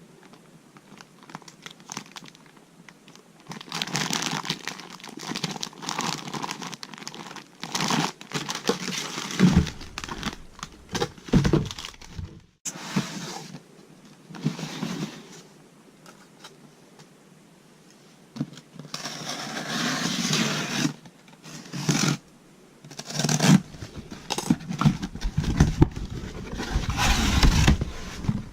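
Plastic and paper packaging being handled and unwrapped by hand, coming in irregular bursts with pauses, with a few low thumps of items being set down or bumped.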